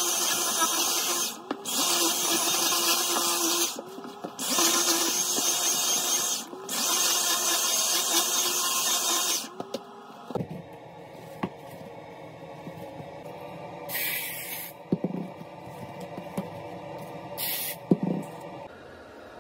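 Cordless stick vacuum running with a loud, steady hiss, briefly dropping out three times with its motor pitch bending as the nozzle works over a fabric slipper, then switched off about ten seconds in. After it, two short hissing bursts and a few light knocks.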